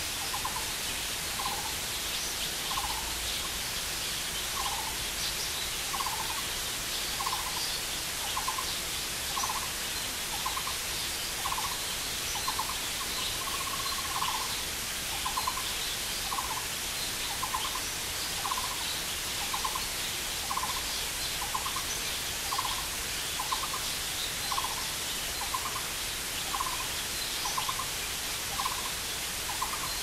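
Steady rushing of a waterfall splashing into a rocky pool. Over it, an animal gives a short trilling call again and again, about once every 0.7 s, with one longer call about halfway through.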